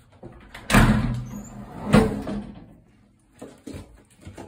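Bathroom door being pushed open: two loud rattling bangs a little over a second apart, followed by softer scattered knocks.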